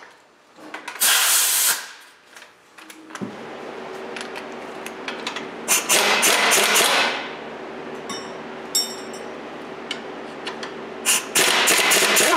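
Power tool run in three short bursts, spinning the nut off a rusty strut mounting bolt. A steady hum starts about three seconds in.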